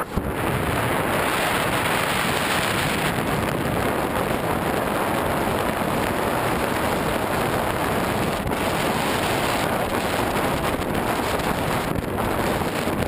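Steady rush of wind buffeting the microphone of a camera mounted outside a Jeep Wrangler driving fast over a sandy desert track, with the vehicle's driving noise mixed in.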